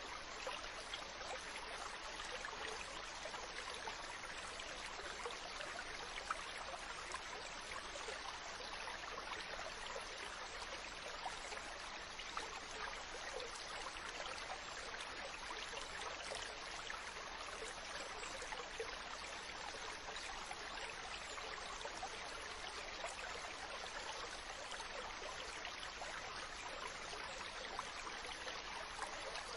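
A small stream running and trickling steadily over stones, a continuous babble with fine splashy detail.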